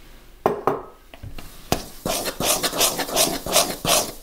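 Two light knocks, then hands squeezing and working crumbly flour dough in a bowl: a run of short rubbing strokes, about three a second.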